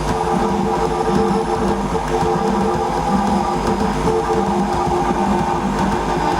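A vacuum cleaner used as a musical instrument: a steady, loud motor drone with several held pitched tones over a low hum. A lower tone pulses on and off about once a second.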